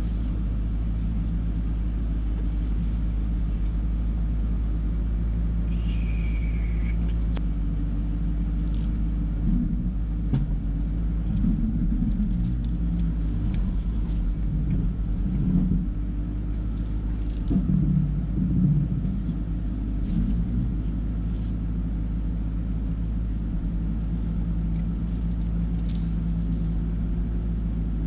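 2019 Ram Power Wagon's 6.4-litre HEMI V8 running low and steady as the truck crawls down a rocky trail, with uneven louder rumbles and knocks in the middle as it works over the rocks.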